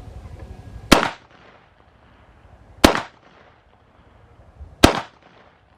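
Three single pistol shots from a PSA Dagger 9mm, spaced about two seconds apart. Each is a sharp crack with a brief echo trailing off.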